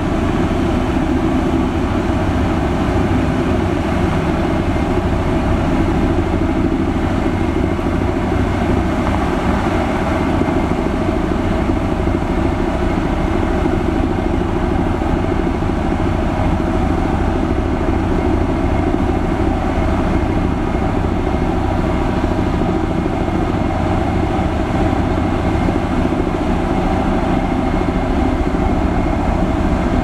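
Diesel engines of several LiuGong 6122E single-drum rollers (soil compactors) running steadily under load as the machines travel slowly together over the road base, a continuous heavy hum with a fast low flutter.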